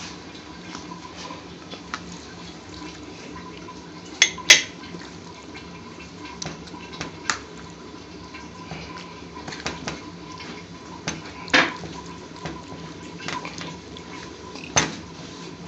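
A spoon clinking and scraping against a ceramic bowl and plate as food is served, with a handful of sharp clinks spread through, the loudest pair about four seconds in, over a faint steady hum.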